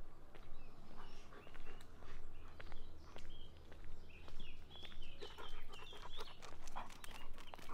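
Footsteps walking at a steady pace along a path, about one or two steps a second, with a bird singing a run of short repeated high notes about halfway through.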